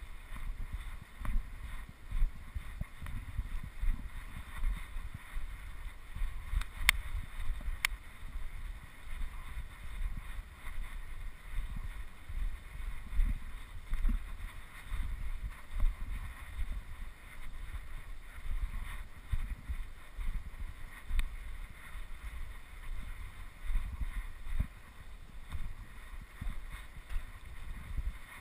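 Low, uneven rumble on the camera's microphone, the kind made outdoors by wind or by the camera moving while it is carried, with two sharp clicks about seven and eight seconds in.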